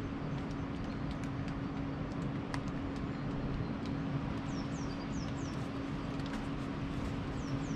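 A small bird calls a quick run of four short, high, falling notes about halfway through and two more near the end, over a steady rushing background noise.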